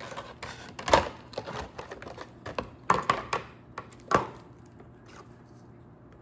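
Clear plastic packaging crackling and snapping as it is handled and peeled off a plastic tray. There are sharp crackles about a second in, a cluster around three seconds and one more just after four, then it goes quiet near the end.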